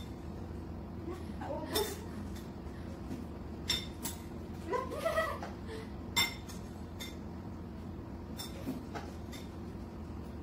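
A spoon clinking against bowls in several separate sharp clicks while scooping marshmallows blindfolded. A short laugh comes about five seconds in.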